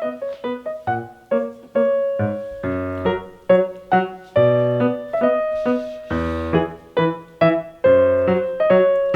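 Background piano music: a light melody of struck notes with bass notes underneath.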